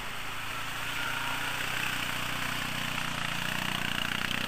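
Quad (ATV) engine running steadily under load while working through a deep mud hole, with a hiss of churned mud and water over it.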